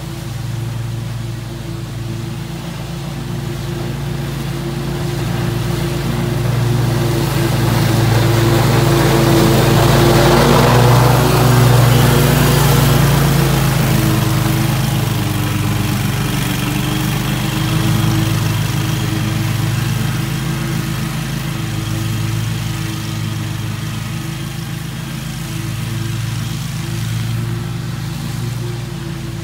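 Scag Tiger Cat II zero-turn mower running steadily while cutting thick grass, engine and blades together. It grows louder as it comes near, is loudest about twelve seconds in, then fades as it moves away.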